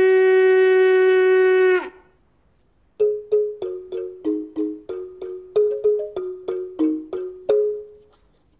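A horn blowing one long steady note that stops about two seconds in. Then a balafon, a wooden xylophone, is played in a quick run of about twenty struck notes at changing pitches, roughly four a second, before fading out.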